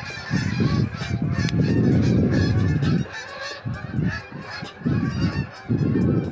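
A large flock of migrating geese honking overhead, many calls overlapping in a continuous chorus. Wind buffets the microphone in loud low gusts, easing off for a second or two in the middle.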